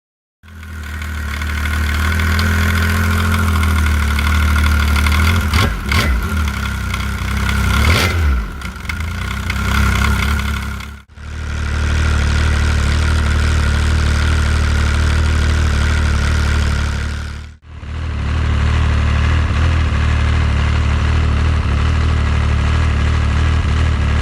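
Arctic Cat ZR7000 snowmobile's 1049cc Yamaha engine and drive clutch running at idle, heard as three separate recordings cut together for a clutch-noise comparison. There are two brief revs about six and eight seconds in.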